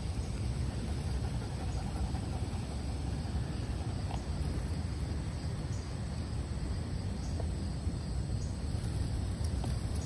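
Outdoor ambience: a steady low rumble with a few faint, scattered ticks.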